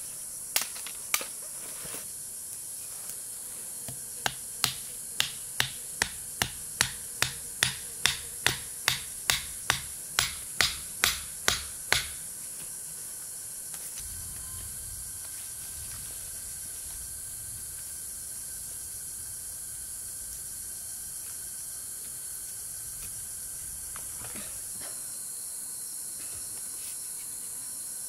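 A run of sharp knocks, two near the start and then about sixteen at roughly two a second, stopping about twelve seconds in, over a steady high hiss.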